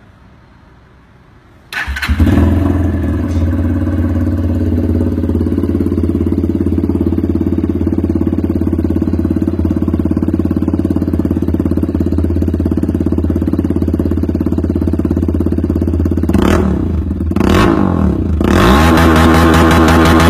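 Sigma 200cc Gladiator motorcycle engine starting about two seconds in and then idling steadily. Near the end the throttle is blipped twice and the engine is revved up and held at higher revs.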